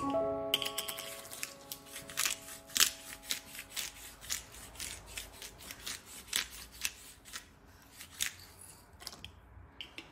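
Hand-twisted black pepper grinder cracking peppercorns: a long run of quick, gritty clicks with short pauses, dying away near the end.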